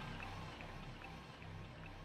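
Quiet background music with held low notes, dipping softer midway and picking up again.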